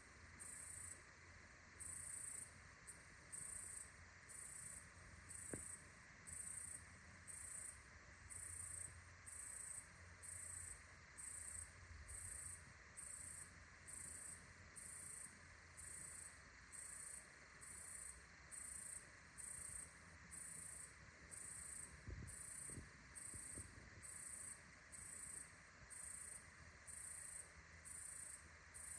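A night insect calling in high-pitched pulses, evenly repeated about once a second, over a faint low rumble.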